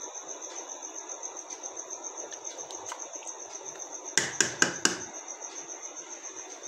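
Chicken stock with rice in a steel pot, simmering with a low, steady hiss, under a steady high cricket trill. A little past four seconds in, a metal spoon knocks sharply against the pot four or five times in quick succession.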